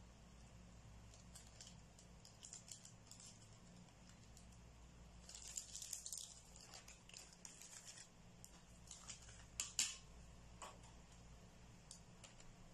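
Faint, scattered light ticks and rustles of a fork pressing and crimping the edges of filled pastry squares on a plate, busier about five to six seconds in, with two sharper taps near ten seconds.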